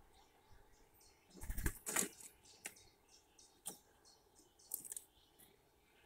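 Bird wings flapping briefly about two seconds in, with light knocks, then a few single clicks and a short high twitter near the end.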